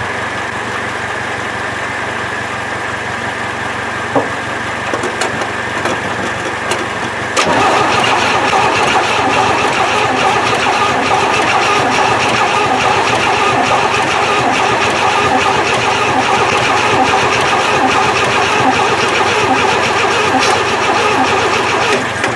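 A steady engine-like running sound. About seven seconds in it gets suddenly louder as the 1968 Chevy truck's engine is cranked on its starter for a long stretch without catching, which the owner puts down to no spark.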